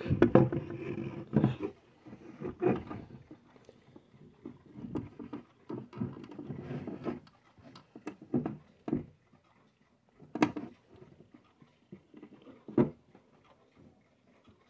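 Hands handling a wall clock, rubbing and gripping the case and face: irregular rustling and scraping with a few sharp knocks, the sharpest about ten seconds in and again near the end.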